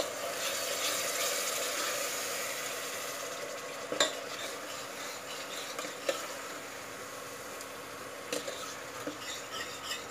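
Spice masala sizzling in an aluminium pressure cooker as it is fried and stirred with a steel ladle after a splash of water; the sizzle is loudest in the first few seconds and then eases. The ladle knocks against the pot a few times, about four and six seconds in and again near the end.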